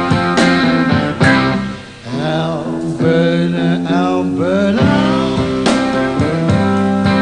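Live blues song: strummed guitar chords with a man singing. The voice slides between notes in the middle, while the guitar keeps an even strumming rhythm.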